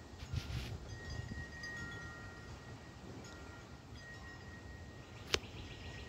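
Wind chimes ringing softly, several clear tones overlapping and fading in and out. A single sharp click comes near the end and is the loudest sound.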